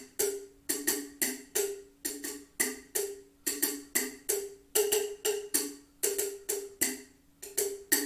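Two-tone wooden block struck in a quick, uneven rhythm, about three or four knocks a second. Each knock rings briefly at one of two pitches, and there is a brief pause near the end.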